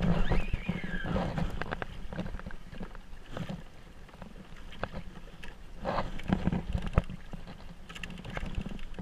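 Water slapping and washing against a Hobie sail kayak's hull, with wind on the microphone and scattered small knocks. A short falling whine comes in the first second.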